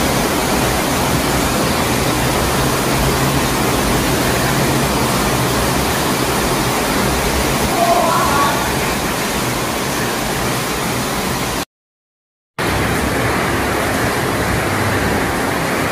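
Heavy rain falling steadily, a dense even hiss. It cuts out completely for about a second near the end, then carries on unchanged.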